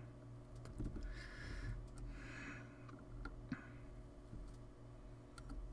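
Faint clicks and ticks of hand tools against a UPS circuit board as surface-mount electrolytic capacitors are desoldered, with two brief soft hisses in the first half. A low steady hum runs underneath.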